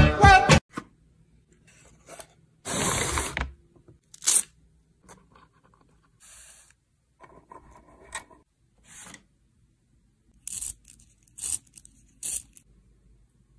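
Brief music, then short handling noises: a burst of noise a few seconds in, small clicks and scrapes as brass wing nuts on a wooden board are turned, and three short grinding strokes near the end as a pencil is twisted in a small handheld sharpener, shaving off curls of wood.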